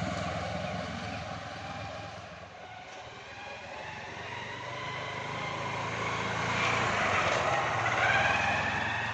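Motorcycle engines running on the road: the sound fades over the first couple of seconds, then a Hero Honda Hunk's single-cylinder engine grows louder as it rides up and passes close, loudest about eight seconds in.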